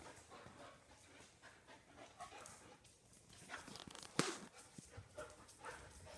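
Two dogs, one a Doberman, playing and running on a concrete floor: panting, with claws clicking and scrabbling on the concrete and one sharp knock about four seconds in.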